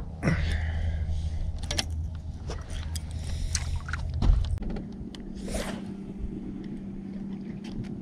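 A boat motor hums steadily under scattered clicks and knocks of fishing tackle being handled. A little past halfway the low hum gives way abruptly to a higher, steady hum.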